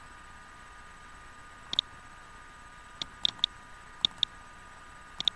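Computer mouse button clicks: about eight short sharp clicks, several in quick pairs as double-clicks, from browsing and opening folders in a file dialog.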